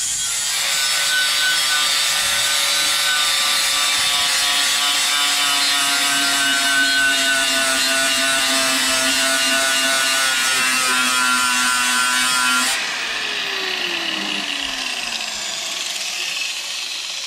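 A Milwaukee corded angle grinder with a sanding disc grinds the edge of a steel shovel blade to sharpen it, a loud, steady grinding for about thirteen seconds. The grinding then stops and the motor's whine falls as it spins down.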